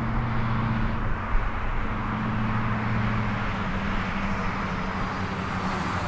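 Parrot Bebop quadcopter's propellers buzzing steadily as the drone flies low past the pilot; the hum drops a little in pitch about halfway through.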